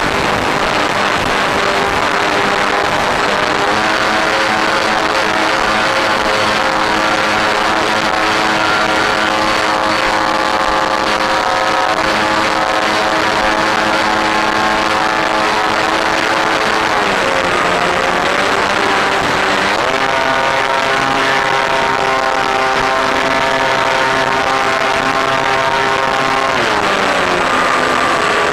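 Electric motor and propeller of an FX-79 flying wing running steadily, a whine of several tones over a hiss of air. Its pitch dips and climbs again about two-thirds of the way through and once more near the end as the throttle changes.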